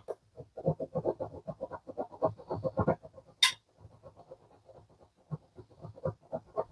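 Rapid hand scraping strokes on the die-cast metal body of a model car, about five a second, as casting lines are taken down. A sharp click about three and a half seconds in, with fainter strokes after it.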